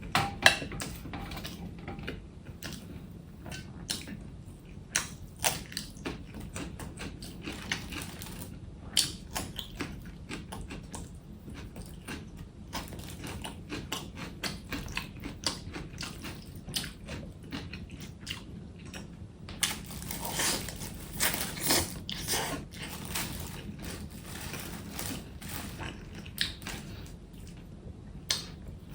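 Close-up dinner eating sounds: irregular clicks and crackles of chopsticks and takeaway food containers being handled, with chewing and biting. It gets denser and louder about two-thirds of the way through, over a faint steady hum.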